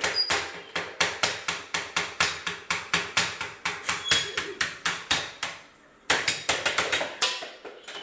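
Wooden spoon tapped hard against a kitchen counter in a quick, steady drumbeat, about five taps a second, with a brief pause about five and a half seconds in.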